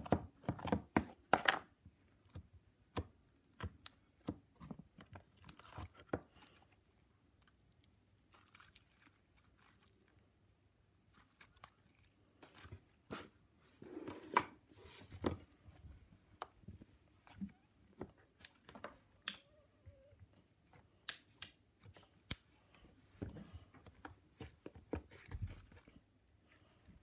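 Hands squishing, kneading and stretching orange slime, making scattered sticky clicks and crackles with short pauses. A denser cluster of louder clicks comes in the first couple of seconds, as a small plastic box is handled.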